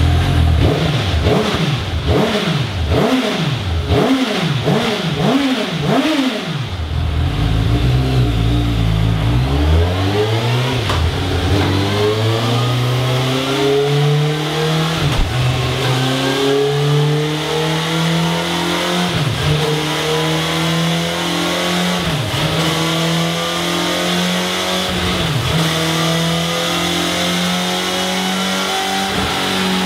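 Suzuki GSX-S750's inline-four engine through its stock exhaust, revved in about six quick blips, then the revs drop, climb steadily and are held at a constant pitch, with a few brief dips.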